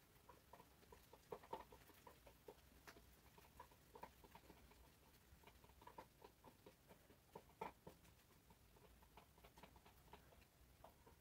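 Near silence, broken by faint, irregular short clicks, a few each second.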